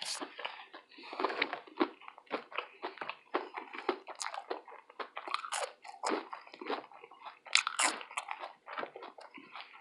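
Close-miked mouth chewing and biting of fried food from a fish sandwich, fries and tater tots: irregular, rapid crunching and moist smacking sounds.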